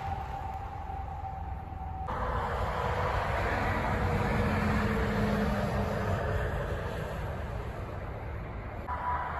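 Semi tractor-trailers passing on a highway: steady diesel engine and tyre noise with a faint steady whine, swelling in the middle as a truck goes by. The sound changes abruptly about two seconds in and again near the end.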